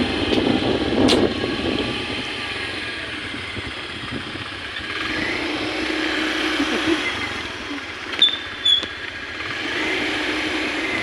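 Motor vehicles passing on a road, the noise swelling and fading twice, with two short high beeps about eight seconds in.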